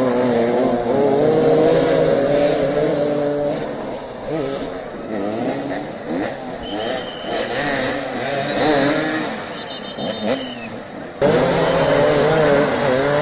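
Several motoball motorcycles' engines revving up and down, their pitches rising and falling over one another as the riders manoeuvre. The engines get abruptly louder near the end.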